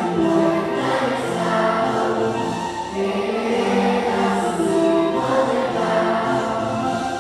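Music with a choir singing long, held notes, played through the event's sound system.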